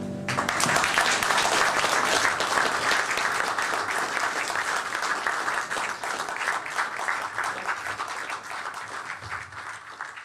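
Audience applauding, breaking out just as the last sustained chord of the song dies away, then slowly thinning and fading near the end.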